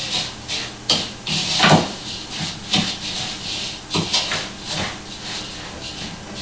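Wooden spoon stirring a dry mixture of shredded cheese, breadcrumbs and onion in a bowl: irregular scraping with several sharp knocks of the spoon against the bowl.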